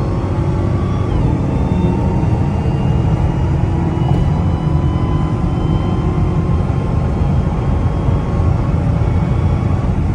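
Supercharged car engine running, a steady low rumble with the supercharger's high whine on top; the whine dips briefly about a second in, then holds a fairly steady pitch.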